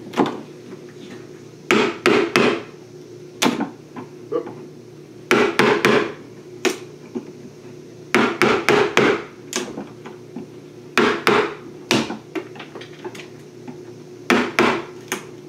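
A wood chisel struck with a hammer, chipping out a hole in a wooden hive top. The sharp strikes come in quick groups of three or four every few seconds, over a steady low hum.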